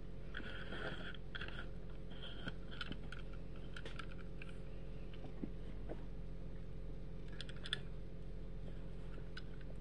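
Faint handling of a plastic toy car on a paper towel: scattered small clicks and light rustles over a steady low hum.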